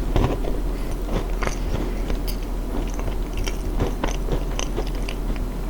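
Close-miked biting and chewing of crunchy food, most likely a chocolate chip cookie, with irregular crisp crackles several times a second.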